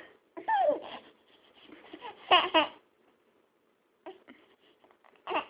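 Baby babbling and laughing: a falling squeal about half a second in, then a short burst of laughter a little past two seconds, the loudest part.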